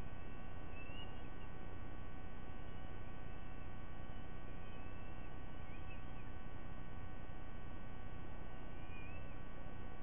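Steady electrical hum from the nest-cam audio, with a few faint, short, wavering bird chirps over it every few seconds.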